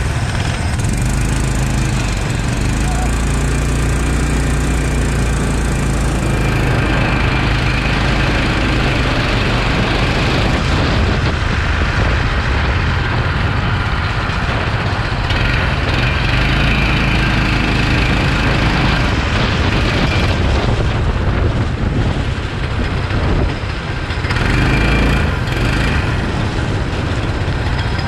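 Kart engine running right at the microphone as the kart pulls away and laps. Its note and level shift several times as the driver accelerates and lifts off.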